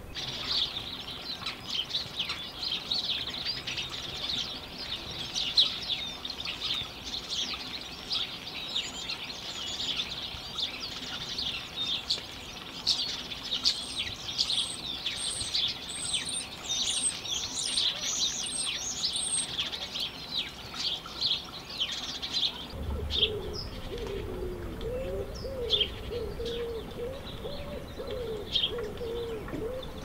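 A flock of house sparrows chirping busily and continuously, with a brief string of thin, very high notes partway through. About two-thirds of the way in the chirping gives way to a wood pigeon cooing, with only a few scattered chirps over it.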